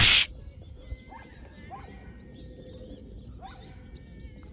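Outdoor ambience with scattered bird chirps and calls, opened by a brief, loud burst of noise lasting about a quarter second.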